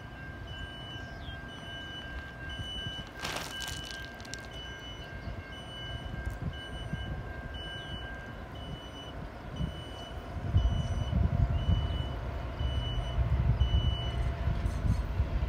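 CSX freight train rolling past a road crossing, a low steady rumble that grows louder about ten seconds in. Over it, the crossing's warning signal sounds a regular electronic beep, and there is a brief hiss about three seconds in.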